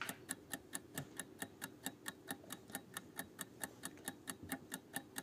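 Clock-like ticking of a quiz countdown-timer sound effect, about four even ticks a second, counting down the time to answer the question.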